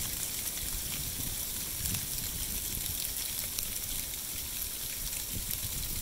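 Dry sleet, small round ice pellets, falling steadily and pattering on dried beech leaves and the snow, a dense fine ticking hiss, with a low rumble underneath.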